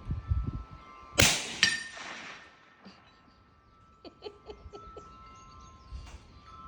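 A single rifle shot with a supersonic 270-grain Hornady load, a sharp crack about a second in, followed half a second later by a second ringing metallic impact. Wind chimes ring faintly underneath.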